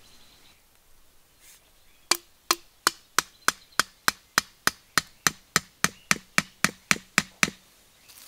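A bamboo stake being struck hard and fast: about nineteen sharp wooden knocks at roughly three a second, starting about two seconds in and stopping near the end.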